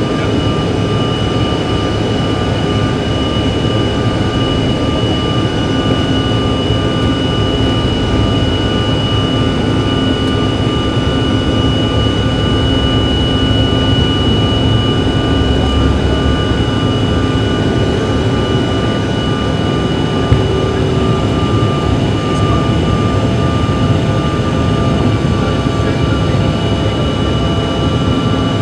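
Cabin noise of an SAS CRJ700 on its takeoff roll and lift-off: the rear-mounted GE CF34 turbofans at takeoff thrust give a loud, steady rush with a high fan whine. There is one sharp click about twenty seconds in.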